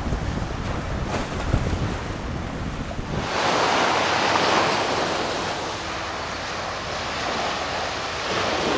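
Wind buffeting the microphone with a low rumble over open water. About three seconds in it gives way to a steady hiss of small waves washing onto a sandy beach, with some wind.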